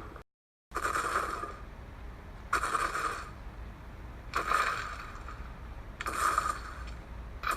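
Custom-made Tyrannosaurus rex sound effect: after a brief dead gap, short rasping growl-like huffs come about every two seconds, five times.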